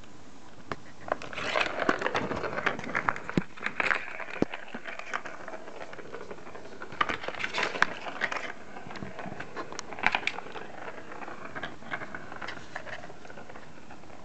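A ball rolling and rattling inside a plastic circuit-track cat toy as a kitten bats at it, with quick clicks and clacks against the plastic. It comes in several spells of a second or two, the busiest in the first few seconds.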